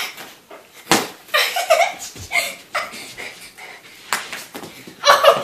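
Children's rough play-fighting with toy swords: a few sharp slaps and smacks of hits, with kids' voices and laughter between them.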